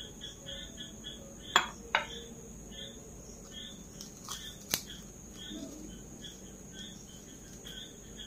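Crickets chirping faintly and steadily, about three chirps a second. Over this come two sharp clinks of a metal spoon against a small glass bowl about a second and a half in, and a single click just before five seconds.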